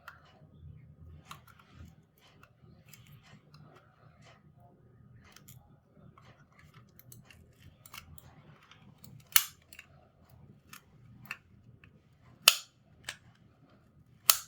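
Small plastic clicks and taps from a computer mouse being handled and worked on, with three much louder sharp snaps in the second half.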